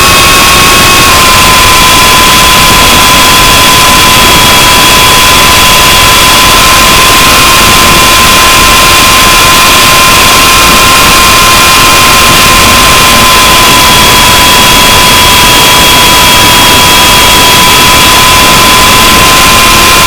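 RC helicopter's motor and rotor running steadily, heard from a camera on board: a loud, steady whine over heavy rushing noise, its pitch dropping slightly about a second in.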